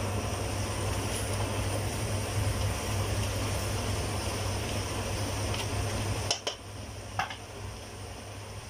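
Oxtail and beef tripe sizzling in a pot as they are stirred with a spatula, over a steady low hum. The sizzle drops off about six seconds in, and the spatula knocks on the pot a few times near the end.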